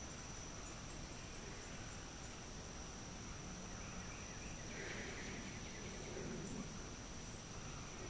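Faint summer outdoor ambience: a steady high-pitched insect trill held without a break over a low hiss, with a slight swell of wider noise a little past the middle.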